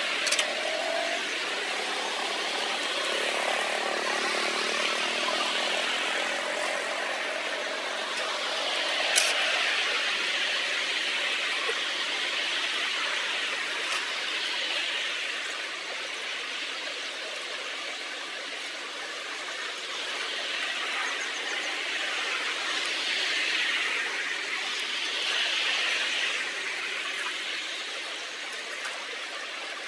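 Steady rush of water flowing through a culvert drain, swelling louder several times, with a couple of sharp clicks.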